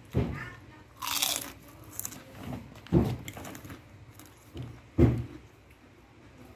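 A man chewing and biting a mouthful of food close to the microphone, with three loud, short thuds about two seconds apart and a brief hiss about a second in.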